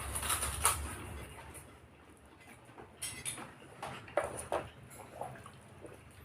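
Close-up mouth sounds of a person eating: chewing with a series of short wet smacks and clicks, over a faint steady low hum.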